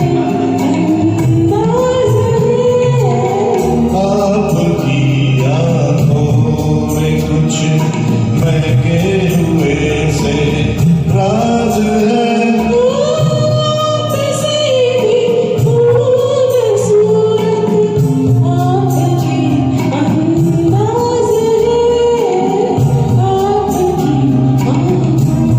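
Singing over a karaoke backing track of a Hindi film song, with a continuous melody over a steady bass line.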